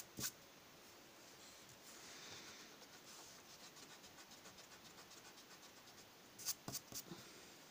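Faint rubbing of a rubber eraser on a paper card in quick, light strokes, with a few sharp taps at the start and again near the end.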